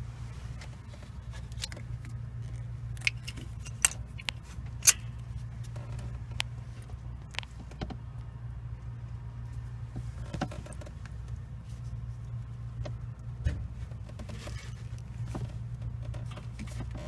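Polaris 800 engine idling with a steady low hum, the rough idle the owner is trying to diagnose. Irregular sharp metallic clicks and rattles sound over it, loudest about four to five seconds in.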